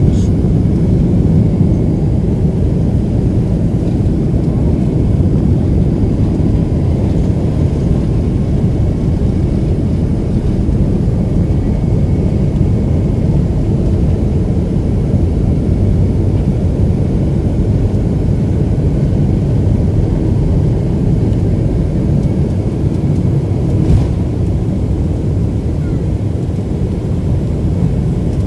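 Airliner jet engines and airflow heard inside the cabin during takeoff: a loud, steady low rumble. A single sharp click sounds near the end.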